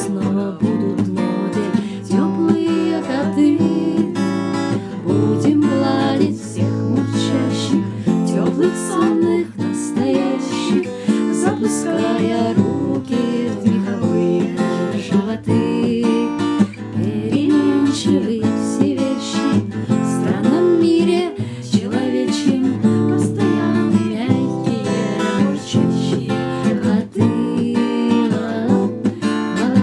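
Acoustic guitar strummed in a steady rhythm as song accompaniment, with a woman's singing voice over it at times.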